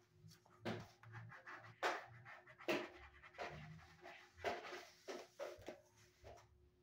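Charcoal pencil and fingers scratching and rubbing on drawing paper: a run of short, rough strokes, several a second or so, over a faint steady hum.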